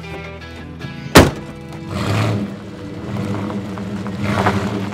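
Background music, with a pickup truck's door slammed shut once about a second in, then the truck's engine running low under the music.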